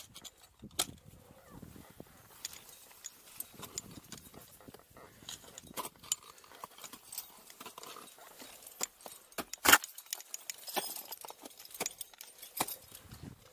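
Ice axe picks and crampons knocking into waterfall ice, with climbing hardware on the harness clinking in between. The knocks are irregular, and the loudest comes about ten seconds in.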